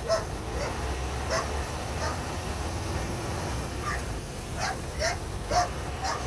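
A series of about nine short, high yelping calls, each rising slightly in pitch, coming irregularly with the loudest near the end, over a steady low hum.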